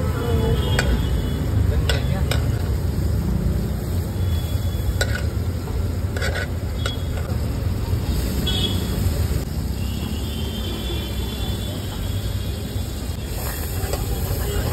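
Butter and chopped vegetables sizzling in a steel kadai while a long steel ladle stirs and scrapes the pan. Several sharp clinks of the ladle against the metal are scattered through the steady sizzle.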